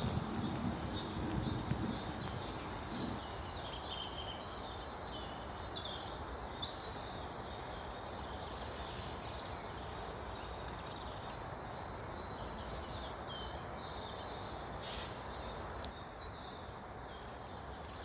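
Small songbirds chirping and calling over a steady outdoor background hiss, with a single sharp click about sixteen seconds in.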